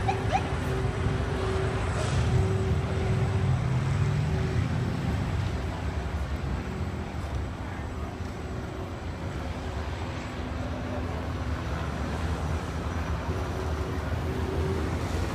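Steady low engine drone with a constant tone riding above it, easing off in the middle and building again near the end.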